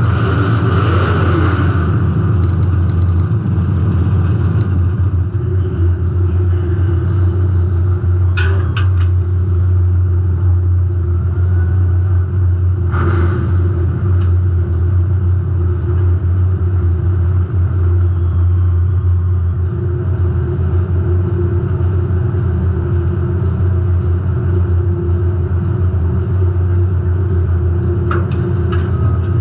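Derby car's engine running with a steady, loud rumble, heard from inside the car, with a few short sharp knocks, the loudest about 13 seconds in.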